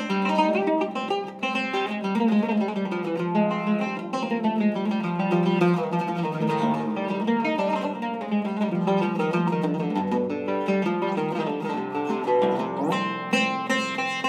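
Professional Zeryab oud with a cedar soundboard played solo with a plectrum: a flowing run of quick plucked notes. A low bass note sounds about ten seconds in, and the melody moves into a brighter high register near the end.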